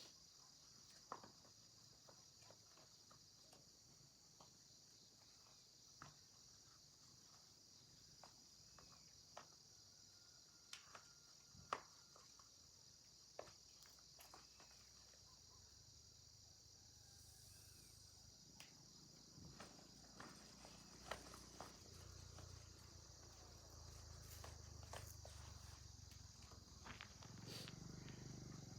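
Faint steady chirring of night insects, with scattered small clicks and knocks throughout; a low rumble rises over the last several seconds.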